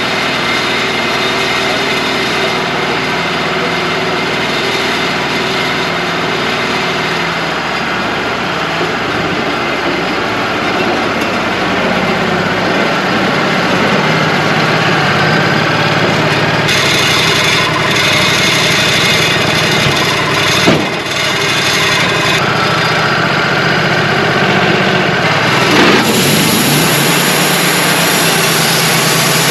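Wood-Mizer LT35 portable band sawmill running steadily, its engine and band blade sawing a white pine log. There is a single sharp knock about two-thirds of the way in, and the sound shifts near the end.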